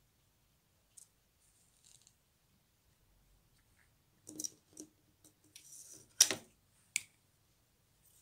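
Quiet handling sounds of knitting: a few soft clicks of the wooden skewer needles and a brief rustle of the knitted yarn piece being turned over, with one sharper click about six seconds in.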